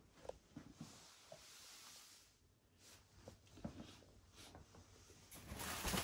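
Faint knocks and rustles of someone walking and handling the camera in a quiet hallway, with a louder rustle near the end.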